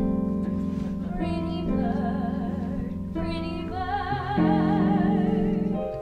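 A show tune: held sung notes with vibrato over sustained instrumental accompaniment, the longest note held from about four seconds in until just before the end.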